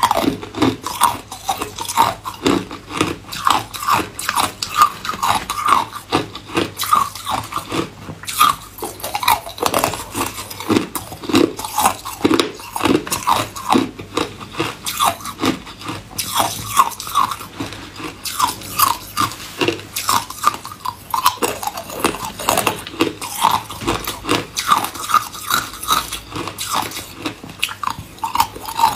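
A person biting and chewing hard ice cubes: sharp crunches in quick succession, several a second, without a break.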